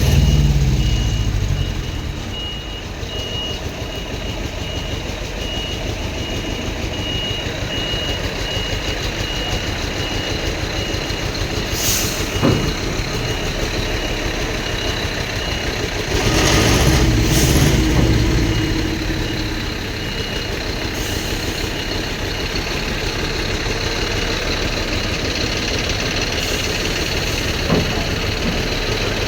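Heavy diesel vehicle engine idling, with a rapid run of short high-pitched beeps from a warning alarm that stops about twenty seconds in. A couple of sharp knocks come around twelve seconds, and a louder rush of noise and engine comes around seventeen seconds.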